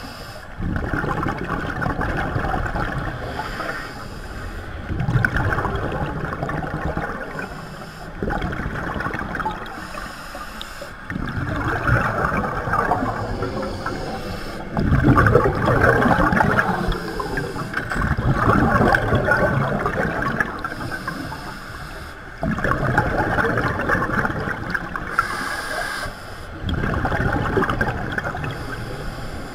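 Underwater scuba breathing: exhaled bubbles gurgling and rushing from a diver's regulator in bursts of two to three seconds, roughly every three to four seconds, with quieter gaps between breaths.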